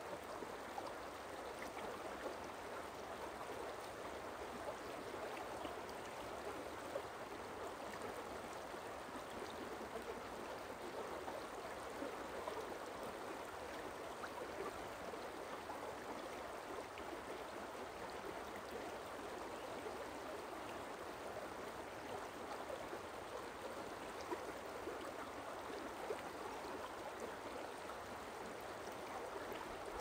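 Forest stream running: a steady rush and babble of water, with brief small splashes standing out here and there.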